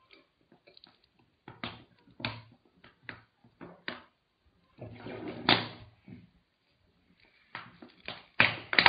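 A man gulping down a bottle of Coca-Cola, a string of separate swallows roughly every half second, with a denser, louder run of gulps about halfway and again near the end.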